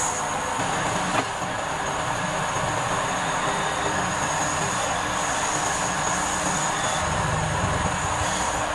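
Wood lathe running steadily with a steady high whine, as a turning chisel cuts the spinning wooden spindle; one sharp click about a second in.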